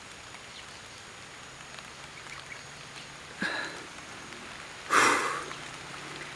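Light rain starting to fall, a steady patter of raindrops on the surrounding leaves and grass. A short noisy burst comes a little after three seconds in, and a louder, broader burst of about half a second at five seconds is the loudest thing.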